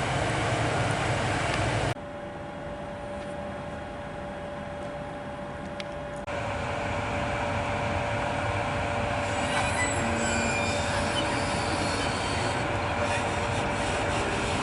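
FS E.652 electric locomotive with a train of flat wagons: a steady electrical hum while it stands. Then, after a cut, the louder running noise of the train pulling away, with wheels rumbling and occasional faint squeals on the rails.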